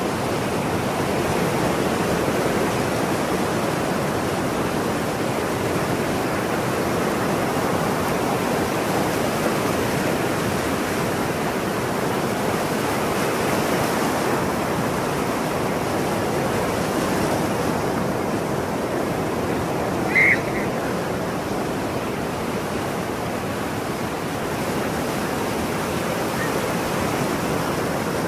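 Ocean surf: a steady rush of breaking waves. About two-thirds of the way in, a single short seagull call sounds briefly above it.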